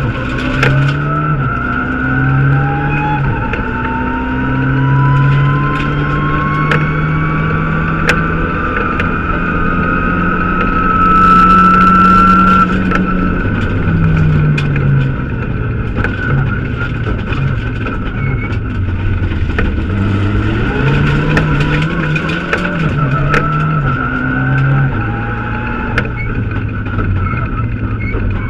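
Mitsubishi Lancer Evolution X rally car's turbocharged four-cylinder engine heard from inside the cabin, driven hard through repeated up- and down-shifts. A long rising whine builds as it accelerates for about twelve seconds, then the driver backs off. Sharp clicks are scattered throughout.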